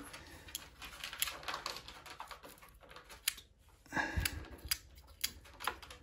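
Light handling noises: scattered small clicks and rustles as a hand feels around the steel freeze plugs on the side of a bare engine block.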